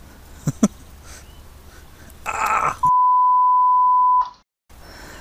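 Censor bleep: a loud, steady single-tone beep of about a second and a half that cuts off abruptly. Just before it comes a short, harsh noisy outburst, and two brief sharp knocks come about half a second in.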